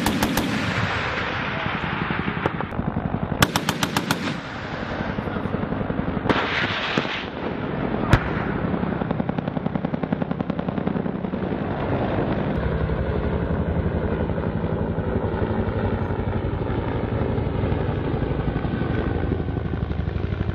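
Automatic cannon fire from an AH-1Z Viper attack helicopter's 20 mm three-barrel gun: a short burst right at the start and another about three and a half seconds in, then a rushing noise around six seconds and a single sharp crack about eight seconds in, all over a steady fast pulsing.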